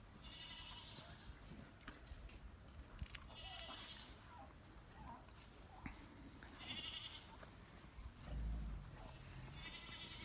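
Goats bleating faintly in the distance: four separate calls a few seconds apart.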